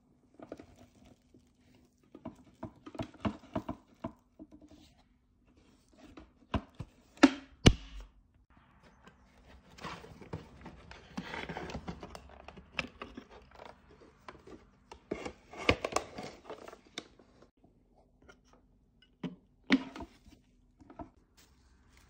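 A Shark Lift-Away vacuum's dust canister packed with dog hair being opened and emptied by hand: scattered plastic clicks and knocks, a few sharp thunks about seven seconds in and later on, and rustling as the matted hair is pulled out into a plastic bag.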